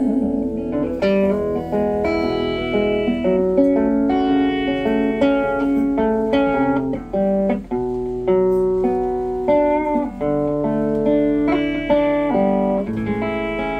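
Acoustic guitar fingerpicked solo: a run of single notes and chords over a lower bass line, with no singing.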